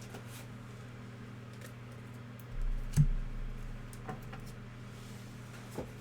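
Soft clicks and taps of trading cards and packs being handled on a table, with one sharp knock about three seconds in, over a steady electrical hum.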